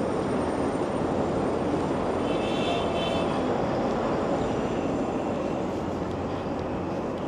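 Steady rumbling street noise, with a brief high whine about two to three seconds in.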